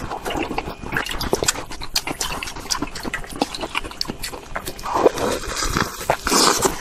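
Ice crunching and crackling as a bottle-shaped block of frozen crushed ice is bitten and chewed, with many sharp crackles and wet sucking and slurping near the end.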